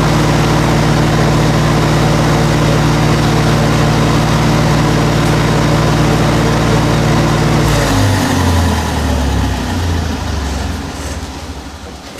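An engine running steadily at a constant speed, then shut off: its pitch falls and the sound winds down and fades over the last few seconds.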